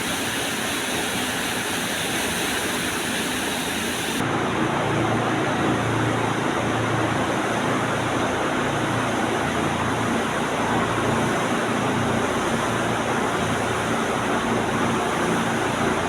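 Steady rushing noise of running machinery. It changes abruptly about four seconds in, and after that a low hum runs under the rush.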